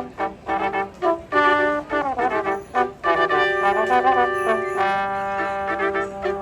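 Brass band playing a Christmas carol: short detached chords, a sliding downward glide about two seconds in, then longer held notes.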